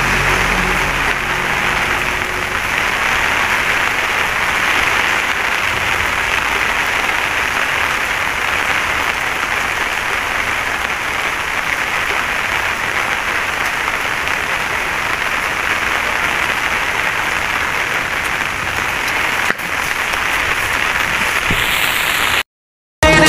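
Steady rain falling on leaves and the ground, an even hiss that cuts off suddenly near the end.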